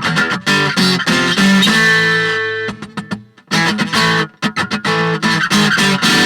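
Washburn WA45CE steel-string electro-acoustic guitar strummed in rhythmic chords, with one chord left ringing about two seconds in and a short break before the strumming resumes. The playing stops suddenly near the end.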